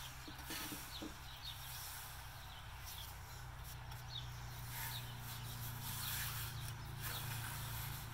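A paper towel wiping thinned white paint off the slats of a new wooden crate, a faint rubbing and rustling with a few soft taps, over a low steady hum. This is the wipe-off step of a whitewash that leaves the wood grain showing.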